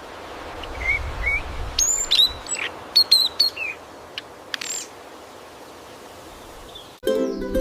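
Songbird chirping: a string of short, high chirps and whistled notes, some sliding up or down, over a steady forest hiss. Ukulele music comes in near the end.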